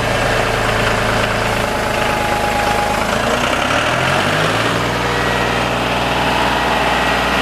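John Deere tractor engine running at a steady idle, revving up briefly about halfway through and then settling back.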